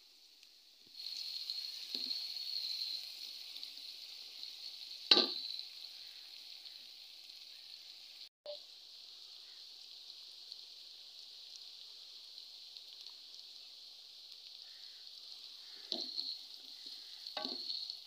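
Finely chopped onions sizzling as they fry in ghee in an aluminium pot, with a steady high hiss. A wooden spatula stirring them knocks against the pot a few times; the loudest knock comes about five seconds in.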